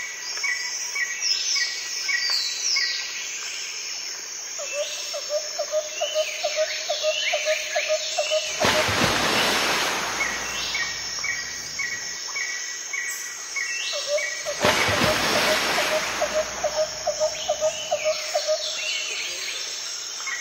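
Several birds chirping and calling outdoors: short falling chirps, runs of quick repeated notes and a lower pulsed call. Twice, about nine and fifteen seconds in, a rushing noise swells over them for about two seconds.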